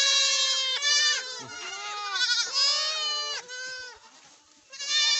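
Several young goat kids bleating, their high calls overlapping one another, with a short pause about four seconds in.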